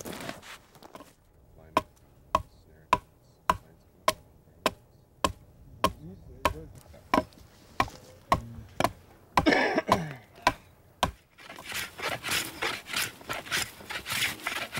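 Wood being chopped with about a dozen evenly spaced blows, a little under two a second, followed by a short rustle. Near the end come rapid scraping strokes of a blade shaving wood into curls.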